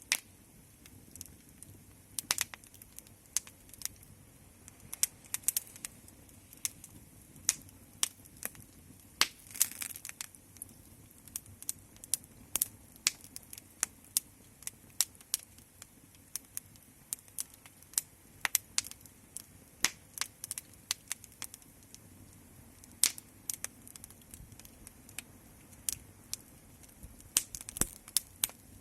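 Fire crackling: irregular sharp pops and snaps, sometimes several close together, over a faint steady background.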